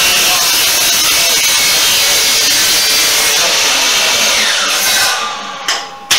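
DeWalt chop saw (sliding miter saw) cutting through wood with its motor running loud, then winding down with a falling whine after about four seconds. Near the end come two sharp knocks, the second loud.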